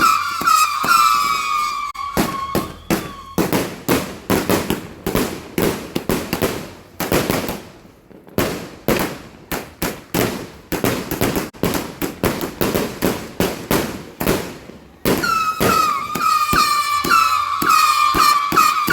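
A 260-shot King of Flames consumer fireworks cake firing a rapid barrage of sharp pops and bangs, several a second, easing briefly about eight seconds in. A high steady tone runs over the first two seconds and returns about fifteen seconds in, partly covering the shots.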